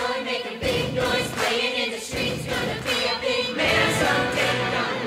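Teenage glee club choir of girls and boys singing together, a lively group performance with music throughout.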